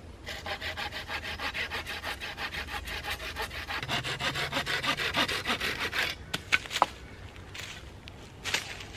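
Folding pruning saw cutting through a thin wooden pole in quick, even back-and-forth strokes for about six seconds, then stopping; a few light knocks of wood follow.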